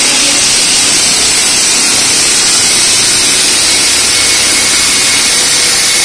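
Walk-behind diamond-blade concrete saw cutting into a concrete slab, running loud and steady with a high hissing edge.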